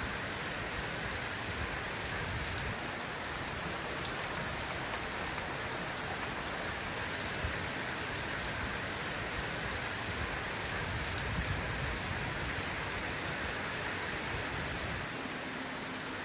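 Heavy rain pouring down steadily in a dense, even downpour.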